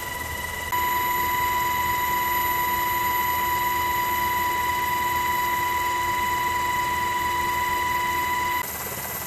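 Cabin noise of a U.S. Navy MH-60R Sea Hawk helicopter in flight: a steady high-pitched gearbox whine over a rushing hiss. It gets louder about a second in and drops back near the end.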